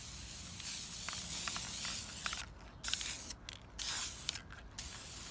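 Aerosol spray paint can hissing as paint is sprayed: one long spray of about two and a half seconds, then several shorter bursts with brief stops between them.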